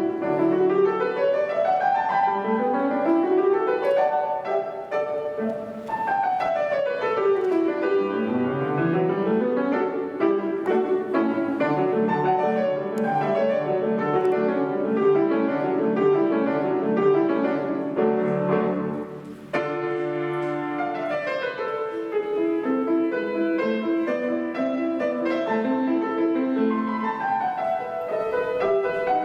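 Solo piano playing classical music: fast rising and falling scale runs, with a brief break in the sound about two-thirds of the way through before the playing resumes.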